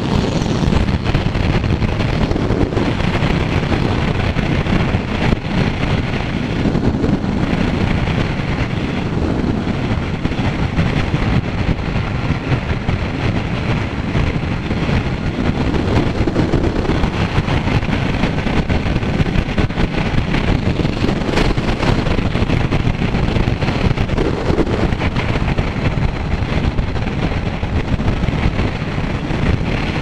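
A Kawasaki Z900 motorcycle on the move, with heavy wind rushing over the microphone and the bike's inline-four engine running steadily underneath.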